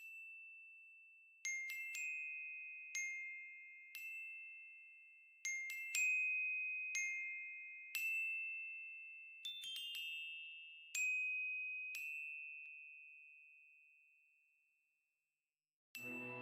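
Background music: a slow, sparse melody of single ringing notes on a glockenspiel- or music-box-like instrument, each note fading away, about one a second. It falls silent for about a second near the end before a fuller, sustained musical passage begins.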